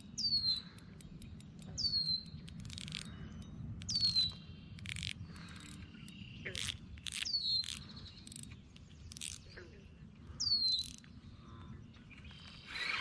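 A bird calling a short whistle that slides down in pitch, five times a few seconds apart, with several sharp clicks in between.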